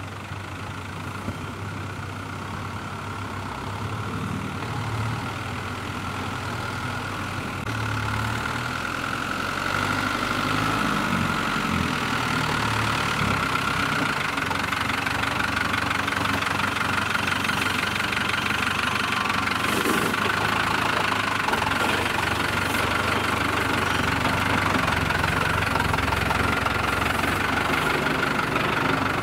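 Off-road 4x4's engine running, growing louder over the first ten seconds or so, then holding steady.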